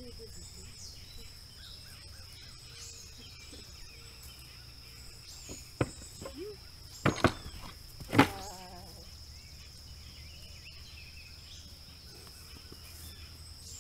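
Paint filly's hooves knocking on the wooden boards of a pallet platform as she walks across it and steps off: a few sharp knocks between about six and eight seconds in, the loudest just after eight seconds. Insects chirr steadily throughout.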